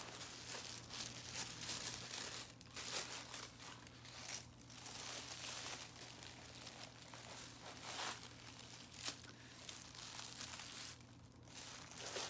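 White tissue paper crinkling and rustling as it is pulled and folded open around a boxed handbag, in irregular crackles and swells.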